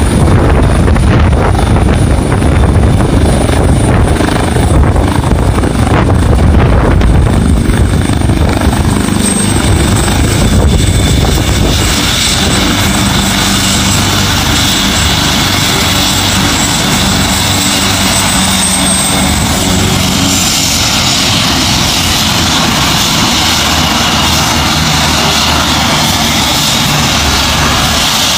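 Helicopter running on the ground with its rotor turning: a heavy rumble for about the first dozen seconds, then a steadier, slightly quieter run with a high whine.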